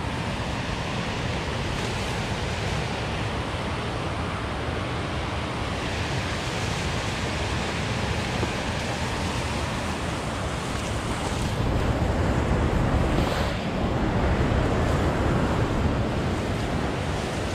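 Steady rushing noise, a low rumble with a hiss above it, swelling a little about two thirds of the way through.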